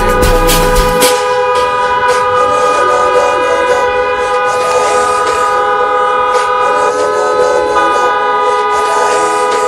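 Several car horns held down together in one long continuous hoot, a few pitches sounding at once, from a convoy of cars arriving in celebration. The mix of pitches shifts about eight seconds in.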